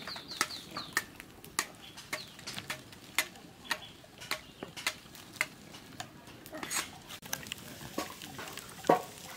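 Open wood fire crackling, with irregular sharp pops a few times a second and one louder pop near the end.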